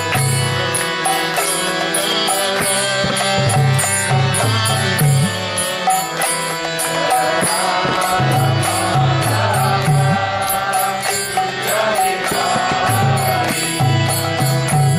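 Kirtan: a mantra chanted in song over instrumental accompaniment, with stepping low notes and a fast, steady beat of high clicks.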